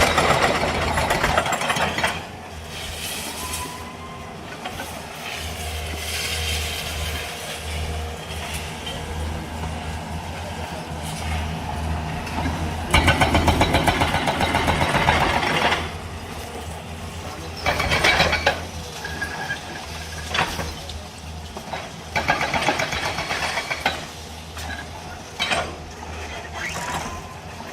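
Heavy diesel engine of demolition machinery running steadily, with people talking over it and a few louder noisy stretches.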